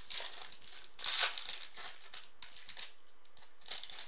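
Foil wrapper of a 2015 Topps Platinum football card pack being torn open and crinkled by hand: a run of short crackles, the loudest about a second in, with a brief lull before a last few near the end.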